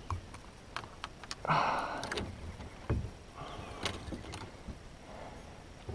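Handling noise of a fish and lure being worked over a plastic kayak: scattered clicks, taps and light knocks, with two short noisy rustling bursts, the first about a second and a half in, as the spinnerbait is unhooked from a Saratoga.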